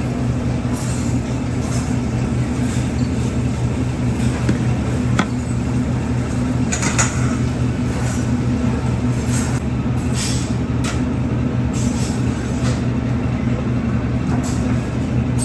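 Steady low drone of commercial kitchen ventilation, with a few light clinks and taps of utensils and dishes scattered through it.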